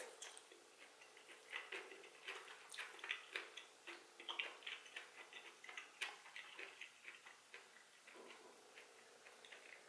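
Close-miked chewing of seasoned vegetables: a run of small, wet clicks and smacks from the mouth, thickest through the middle and thinning near the end.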